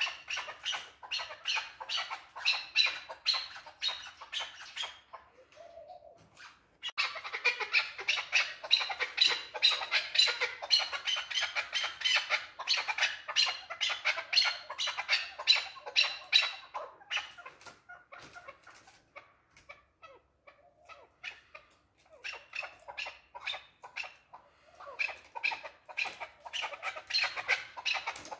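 Male chukar partridge calling: fast runs of short repeated notes in long bouts. It breaks off about five seconds in, goes on loudly for about ten seconds, turns quieter for a few seconds, then picks up again near the end.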